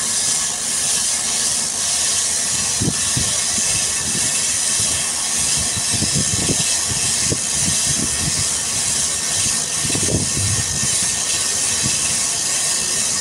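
Steady outdoor hiss of wind and water at the shoreline, with a few irregular low thumps about three, seven and ten seconds in.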